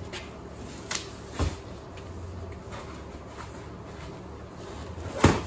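Knocks from a large cardboard shipping box as an e-bike is tugged at inside it: two light knocks about a second in, then a sharper, much louder thump near the end.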